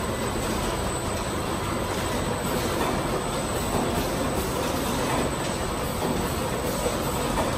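Automatic bottle filling line running: a steady mechanical rattle from the rotary bottle turntable and conveyor, with a thin high tone throughout.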